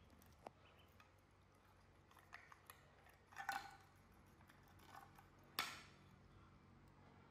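A plate being handled and tipped, clicking and clattering against a tiled floor: a few light clicks, a louder clatter about three and a half seconds in, and one sharp knock about five and a half seconds in.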